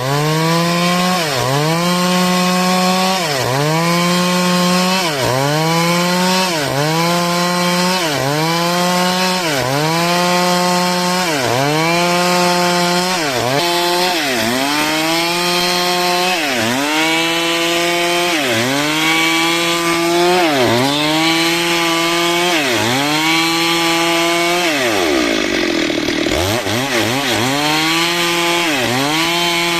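Stihl two-stroke chainsaw cutting dry timber at high revs. Its pitch dips briefly and recovers about once a second as the chain loads in the wood, with one deeper, longer drop about 25 seconds in.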